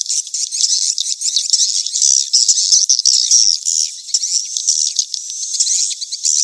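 Edible-nest swiftlets chattering in a dense, continuous stream of rapid high-pitched chirps and twitters. These are recorded mating-chase calls, used as a lure to call swiftlets into a nesting house.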